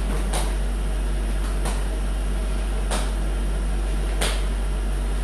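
Four sharp slaps from jumping jacks, about one every 1.3 seconds, over a steady low hum.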